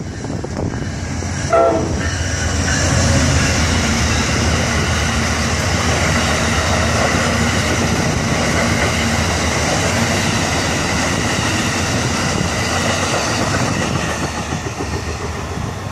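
Amtrak passenger train passing close by: a short horn blast about a second and a half in, then the steady rolling noise of the cars' wheels clattering over the rails, easing off near the end as the last car goes by.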